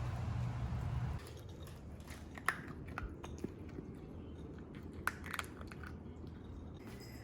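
A low rumbling noise stops about a second in, followed by small irregular clicks and crunches of a mini dachshund puppy chewing on something.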